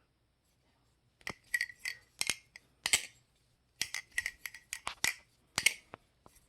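Balisong (butterfly knife) being handled: an irregular string of sharp metallic clicks and clinks, starting about a second in, some with a brief ring.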